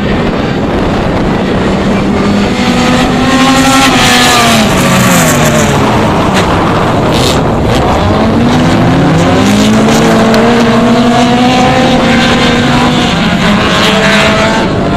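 Several autocross race cars running together, their engines revving up and falling back through gear changes, with more than one engine note heard at once.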